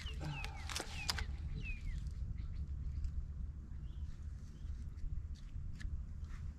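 A bird's call: about five short, high, falling chirps in quick succession during the first two seconds, over a steady low rumble with scattered faint clicks.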